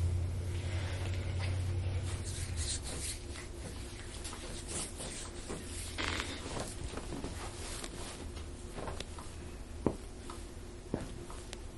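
Soft rustling and shuffling of clothing and a body being moved on a treatment table, with a few light clicks near the end. A low hum under it stops about two and a half seconds in.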